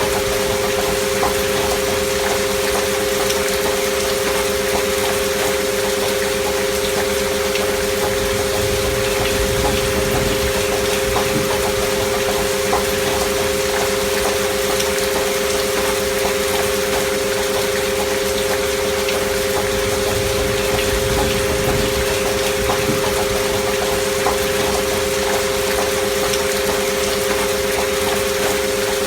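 Gentle steady rain, with a faint patter of drops, under two steady pure tones held unchanging: a binaural-beat frequency track.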